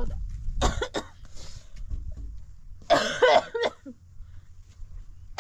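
A person coughing: a short cough about half a second in, then a harder, longer bout about three seconds in.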